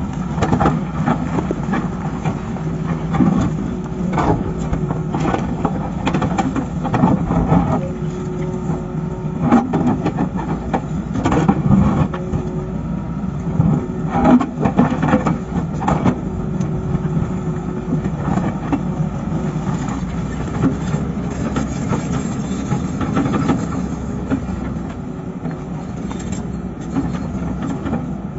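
Hydraulic excavator's diesel engine running steadily with a constant tone, broken by repeated knocks and scraping as the bucket pushes and rolls rock. The knocks come thickest in the first half.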